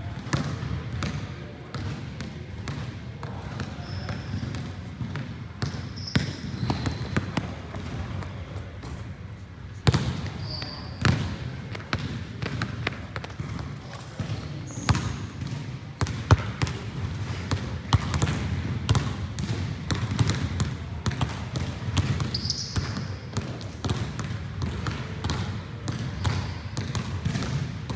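Basketballs bouncing on a hard gym floor as players dribble and shoot, with irregular thuds throughout. A few short high squeaks are heard now and then.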